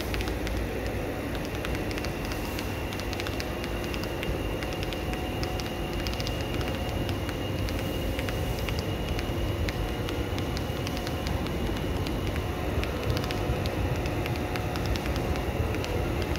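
A Class 156 diesel multiple unit approaching slowly over curved station track. Its diesel engines run with a steady rumble and a faint whine, with light clicking from the wheels, growing a little louder as it nears.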